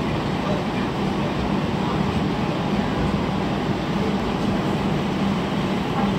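Interior running noise of a low-floor TTC streetcar in motion: a steady rumble with a constant low hum.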